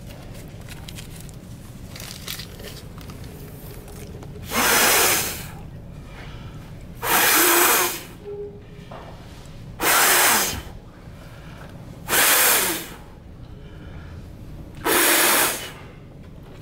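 A person blowing hard breaths of air into cupped hands: five loud rushes of breath, each lasting about a second, coming roughly every two and a half seconds.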